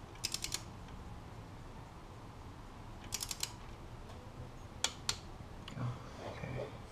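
Hand ratchet wrench clicking in two quick runs of about five clicks each as it is swung back on a bolt in a 5.7 Hemi's cylinder head, its pawl catching properly. Two sharper single clicks follow close together about five seconds in.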